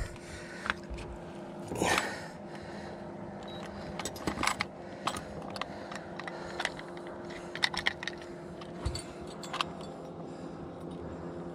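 Scattered light clicks and jingles of fishing gear being handled: a plastic fish lip grip and the metal hook of a digital hanging scale being clipped together to weigh a striped bass.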